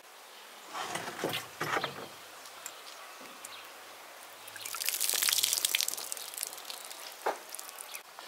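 Water poured from a plastic jug over peeled garlic cloves in a small glass bowl to rinse them. It is then tipped out through the fingers, splashing onto soil, loudest for about two seconds in the middle. A single light knock comes near the end.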